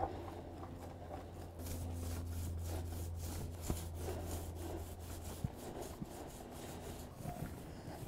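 Paint roller on an extension pole rolling driveway paint over rough concrete: a repeated rasping scrub with each stroke. A low steady hum runs underneath and stops about five and a half seconds in.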